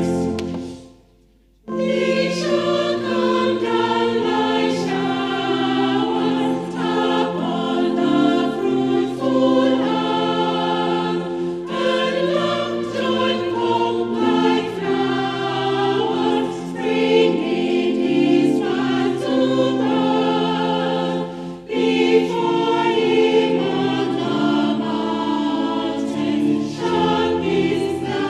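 Choir singing a hymn in parts. The singing stops briefly about a second in, between lines or verses, then resumes.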